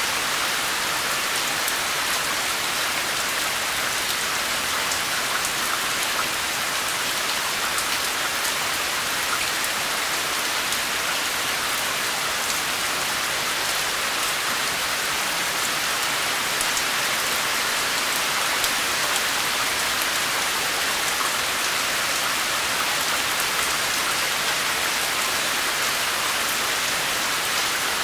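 Steady rain falling and pattering on a surface, many small drop ticks in a continuous hiss.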